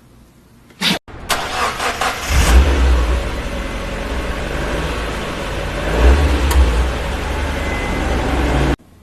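A car engine cranking, catching about two seconds in and running with a couple of revs, starting and stopping abruptly as a spliced-in clip.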